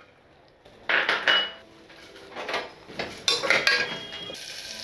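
Steel slotted spoon clattering and scraping against the inside of an aluminium pressure cooker as whole spices and green chillies are stirred in hot ghee, in several sharp bursts. A steady sizzle of the spices frying builds near the end.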